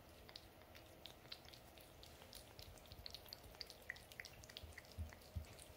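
Cat licking a liquid treat from a squeeze pouch: faint, irregular wet tongue clicks, several a second.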